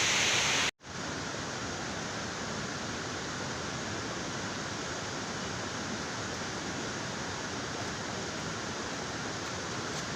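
Steady rush of a waterfall. It cuts out for an instant about a second in, then carries on steadily, a little quieter.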